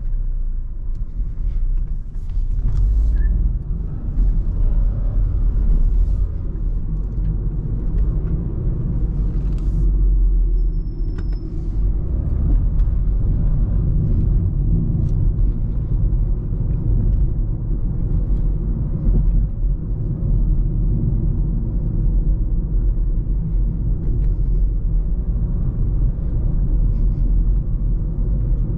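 Cabin sound of a BMW 218i F45 Active Tourer on the move: its 1.5-litre petrol engine and tyre noise make a low, steady rumble, with a few light clicks and knocks.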